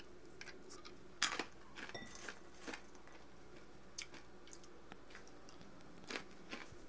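Someone chewing crisp roasted acorns: faint, irregular crunches scattered through a few seconds, the strongest just over a second in.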